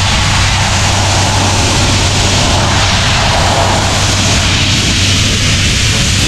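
Compressed-air blowpipe blasting a steady, loud hiss of air, over the constant low drone of a diesel air compressor.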